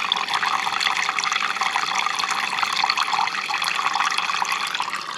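Water running steadily from the camper van's sink tap into a plastic measuring jug.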